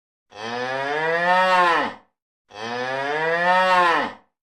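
A cow mooing twice, two long identical moos, each rising slightly in pitch and dropping away at the end, with a short silence between them.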